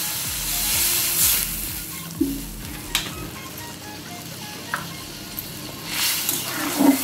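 Water poured into hot masala in a metal kadai, hissing and sizzling loudest for the first second or so, then a metal spatula stirring the gravy with a few sharp clinks against the pan and a louder scrape near the end.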